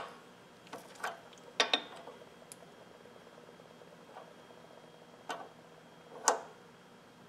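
A handful of light metallic clicks and taps from an open-end wrench on a brake bleed screw, spread out with long quiet gaps between them. The screw is being worked open while the brakes are vacuum-bled.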